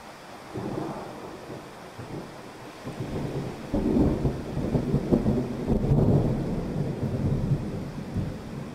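Thunder rumbling over steady heavy rain: a first low rumble about half a second in, then a longer, louder rumble from about four seconds that fades near the end.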